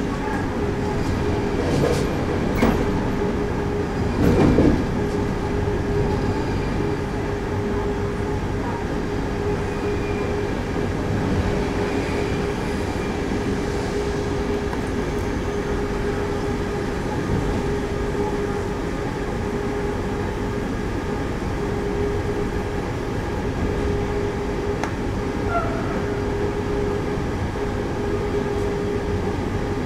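A train running on the rails, heard from its driver's cab: a steady rumble with a constant motor hum, and a couple of louder clattering knocks in the first few seconds.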